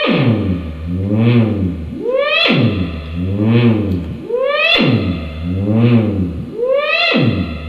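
Synthesizer-like electronic tone swooping down and up in pitch, in a warbling pattern that repeats roughly once a second.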